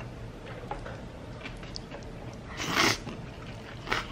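A person eating noodles with chopsticks: faint chewing and small clicks, with a short slurp about two and a half seconds in and a smaller one near the end.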